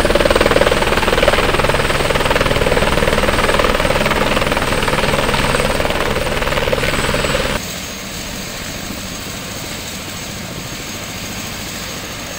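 Airbus AS350-type single-engine helicopter running on the ground with its main rotor turning: a loud, steady engine and rotor noise. About seven and a half seconds in it cuts off abruptly, leaving a quieter steady background noise.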